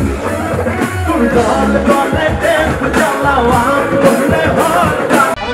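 Live band music: a male singer over electric guitar and a steady drum beat, about two beats a second. It cuts off abruptly near the end.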